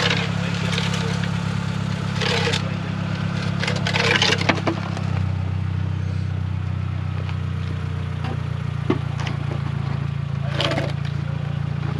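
A car engine running steadily, its pitch shifting about five seconds in, with short bursts of crackling noise over it.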